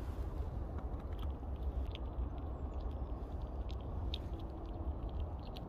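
Low, uneven wind rumble on the microphone, with a few small sharp clicks as a Eurasian red squirrel takes nuts from an open hand and starts to eat.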